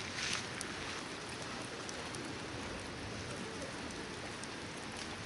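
Hardwood campfire burning with a steady hiss and a few faint crackles.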